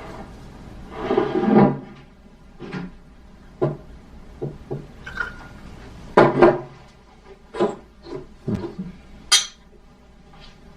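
Scattered knocks and clinks of glasses and dishes on a table, loudest about six seconds in, with a sharp high clink near nine seconds.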